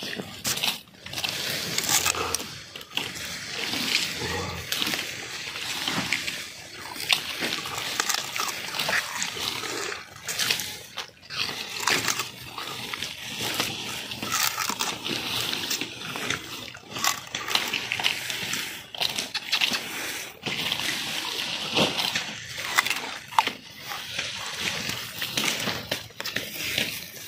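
Raw sugarcane being chewed close to the microphone: irregular crunching and cracking of the fibrous stalk mixed with wet sucking of the juice.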